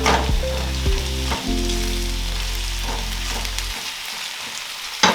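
Chicken drumsticks frying and sizzling in a pan of onions and tomato paste, with a few sharp knocks as they are put in and stirred.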